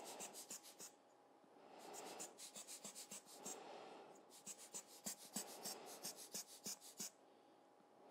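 Faint, quick scratching of a fine brush stroking back and forth on the paper, in three runs of rapid strokes, with breathy puffs of air from a hand-squeezed rubber lens-cleaning blower.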